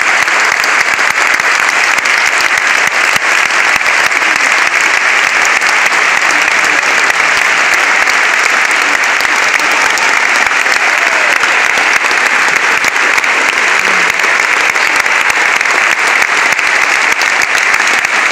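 Large concert audience applauding steadily: a dense, even wash of clapping.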